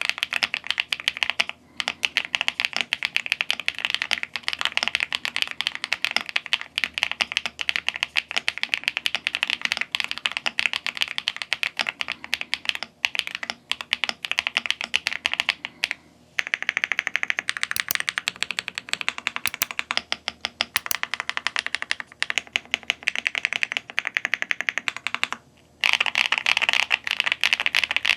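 Rapid typing on a GMK67 65% gasket-mounted mechanical keyboard with pre-lubed Akko Mirror 37gf linear switches and dye-sub keycaps, with the case foam installed. Dense key clacks with a few short pauses.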